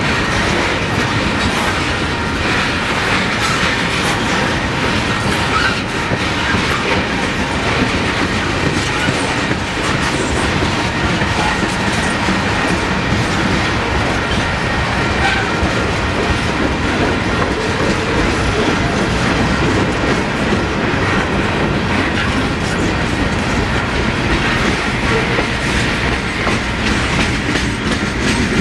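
Freight train of tank cars and covered hoppers rolling past, its steel wheels clicking steadily over the rail joints.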